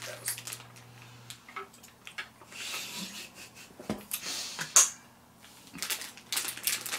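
A plastic snack wrapper crinkling in short rustling bursts as it is handled and pulled open, with one sharp click just before five seconds in.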